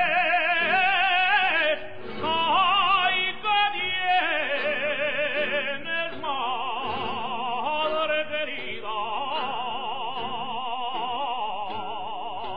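Music: a jota sung in an operatic style, one voice with wide vibrato holding long high notes.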